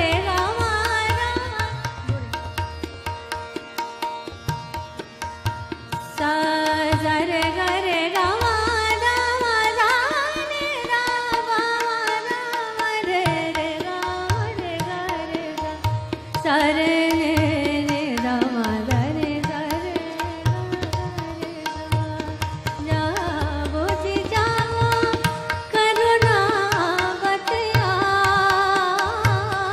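Live Hindustani semi-classical singing: a woman's voice in a flowing, ornamented melody with tabla strokes and a steady tanpura drone beneath it.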